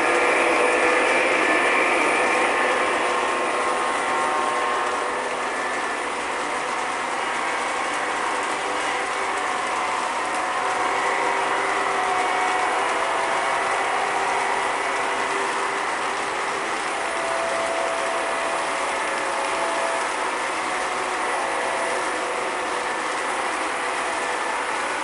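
Several electric model trains running at once on a layout: a steady mechanical whir and clatter of motors, gears and wheels on track, with faint motor whines that come and go at different pitches as the trains pass.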